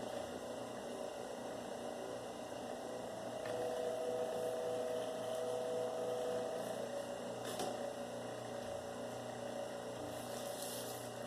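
Electric copper wire stripping machine's motor running with a steady hum; a higher steady tone joins for a few seconds in the middle, and there are two short clicks in the second half.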